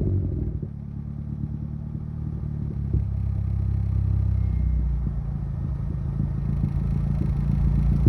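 Honda Civic idling through a newly installed 3-inch Skunk2 MegaPower RR exhaust, a steady low exhaust note that grows a little louder toward the end.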